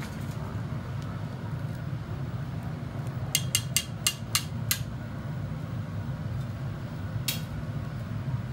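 Glassblower's steel punty rod tapped about six times in quick succession with sharp, ringing knocks, knocking the freshly made vase off the punty into the annealer, then one more knock near the end. A steady low hum runs underneath.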